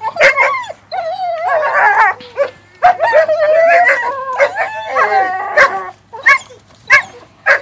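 A group of German shepherd puppies whining and yipping as they tug at a stick together in play. Wavering high-pitched calls run on for several seconds, then three short sharp yelps come near the end.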